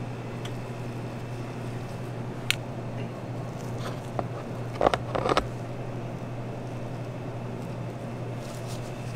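Steady low machine hum with background hiss, broken by a single sharp click about two and a half seconds in and a short cluster of taps and knocks about five seconds in, from hands and a knife working on the crepe.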